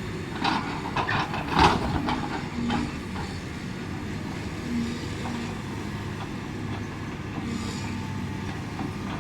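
Excavator's diesel engine running steadily, with a quick series of metal clanks in the first two seconds.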